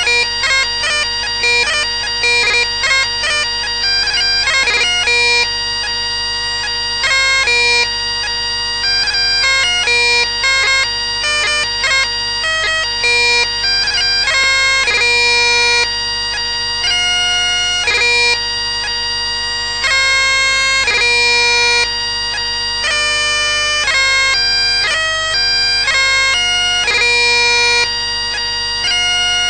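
Bagpipe dance tune played on electronic bagpipes: a quick chanter melody with many short notes over steady, unbroken drones.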